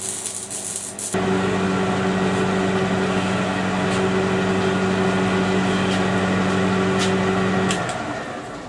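A brief hiss, then a steady electric motor hum that runs for about seven seconds and stops shortly before the end.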